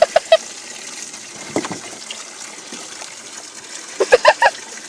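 Water gushing steadily from a hose as it sprays the pigs and fills their trough. A few short, sharp calls sound at the very start and again about four seconds in.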